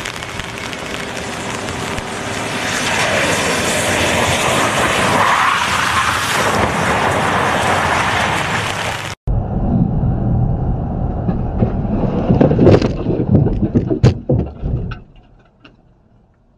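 A steady rush of water as a pickup truck drives through flood water on a road, swelling as it passes. Then a vehicle's cabin with a low rumble and a run of loud knocks and bangs a little before the end, which fade out.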